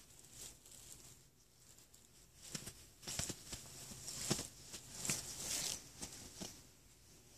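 Cloth rustling and scuffing as a cat paws, grabs and tugs at a bandana dragged across a bed comforter, with a burst of louder rustles and soft knocks from about two and a half seconds in to near the end.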